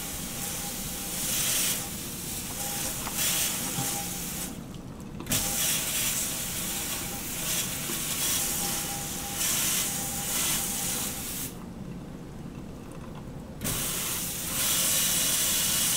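Water from a sensor-activated faucet running over soapy arms and hands into a stainless steel sink, a steady hiss and splash while the arm is rinsed. The water sound drops away twice, once for about a second and once for about two seconds, before returning.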